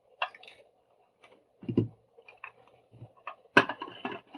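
Scattered clicks and knocks from small plastic headphone parts being handled during disassembly, with a duller knock a little under two seconds in and a sharp click a little past three and a half seconds.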